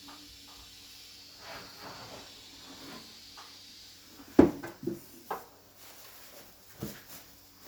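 Handling noise: soft scraping, then one sharp, loud knock a little past halfway, followed by three lighter knocks.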